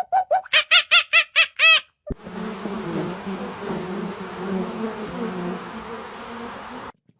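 A quick run of sharp, rapid animal calls, several a second, stops about two seconds in. Then an insect's steady buzzing hum runs for about five seconds over a hissy background and cuts off abruptly.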